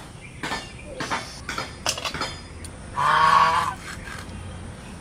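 A single animal call, held for under a second about three seconds in, among scattered light clicks and knocks.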